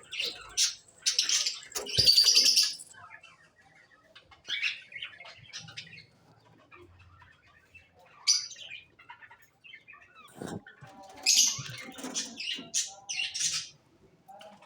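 Caged birds chirping in short bursts, with fluttering wings and a sharp knock about two seconds in.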